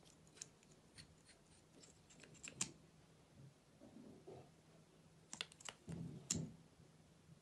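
Faint small plastic clicks and taps from handling a makeup tube and its cap, in two clusters: a run of clicks in the first two and a half seconds, and another from about five and a half to six and a half seconds in.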